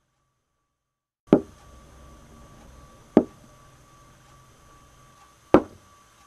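Three sharp knocks about two seconds apart, each with a short ringing tail, starting about a second in after dead silence, over a faint steady hum.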